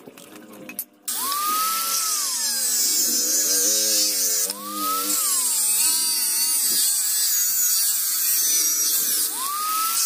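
Mini rotary grinder with a cutting bit starting up about a second in and cutting the pattern into a knife sheath. Its high whine rises and falls in pitch several times, with a short dip about halfway through.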